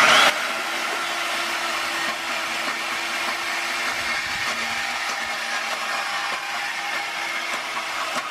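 Electric power tool cutting through steel exhaust pipe: a loud burst right at the start, then a steady whine with a hiss as it cuts through the pipe easily.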